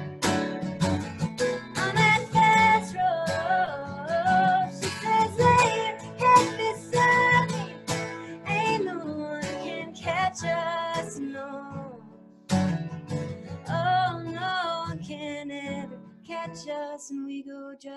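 Acoustic guitar strummed while a woman sings a song over it, holding notes with vibrato. About twelve seconds in, the music drops away for a moment, then comes back in strongly, and it eases off toward the end.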